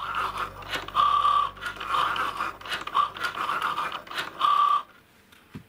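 Cricut Joy cutting machine at work, its motors whining in short stop-start bursts as the blade carriage shuttles across and cuts a sheet of Tamiya masking paper. The running stops about a second before the end, followed by a single faint click.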